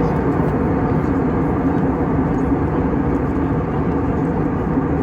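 Steady airliner cabin noise: the engines and airflow heard from inside the passenger cabin as an even, unbroken rumble.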